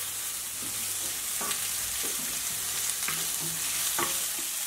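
Chopped hogweed stems, lettuce and spring onion sizzling in a hot frying pan. A wooden spatula stirs them, scraping and tapping the pan about once a second.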